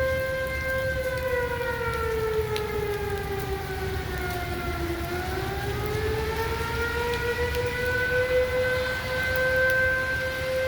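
Outdoor tornado warning siren sounding for a tornado warning. Its steady tone begins sliding slowly down in pitch about a second in, bottoms out near the middle, then climbs back over about three seconds to its earlier pitch and holds there. Wind and rain make a low rushing noise underneath.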